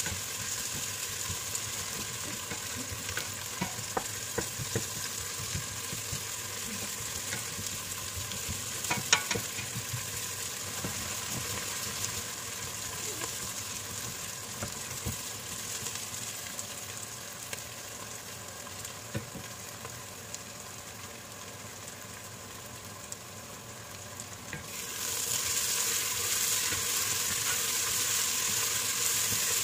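Sliced onions sizzling in hot oil in a stainless steel pot, stirred with a wooden spatula that scrapes and knocks against the pot now and then. The sizzle grows louder near the end.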